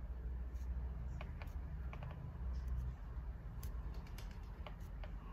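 Light, scattered clicks and taps of a marker pen and the steel machete blade being handled on a metal workbench while the spine is marked out, over a steady low hum.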